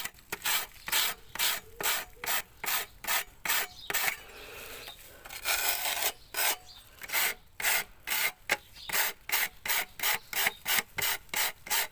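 Rasping scrape strokes of a hand tool rubbed back and forth over a brick repair patch, about three strokes a second, with one longer continuous scrape partway through; the rubbing smooths the patch to match the texture of the surrounding brick.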